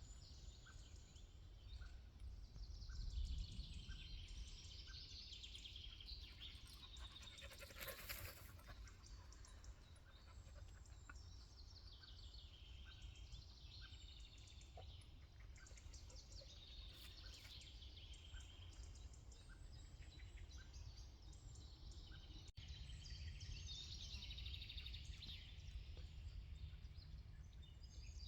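Several birds singing in overlapping, repeated chirping phrases, over a low steady rumble.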